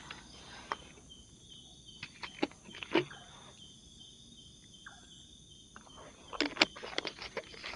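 Steady high-pitched chorus of crickets and other night insects, with scattered clicks and crackles from a plastic water bottle being handled and drunk from, most of them near the end.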